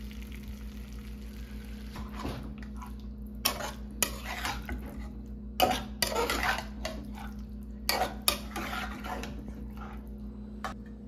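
Long metal spatula scraping and knocking against a metal frying pan as chicken pieces are stirred into masala, with sharp clicks of metal on metal several times. It starts about two seconds in, after a soft steady hiss.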